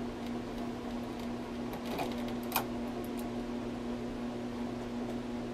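Tatung spinner ceiling fan's motor running with a steady electrical hum, just switched down to medium speed. Two short clicks come about two seconds in.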